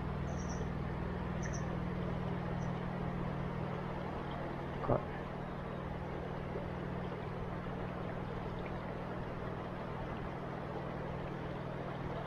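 River water flowing steadily past, with a few faint, short high chirps in the first couple of seconds and a single sharp knock about five seconds in.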